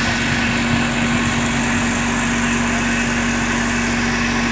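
Sand-screening and washing machine running steadily: a constant mechanical hum with one steady tone, as the vibrating mesh sieve shakes sand under a water spray.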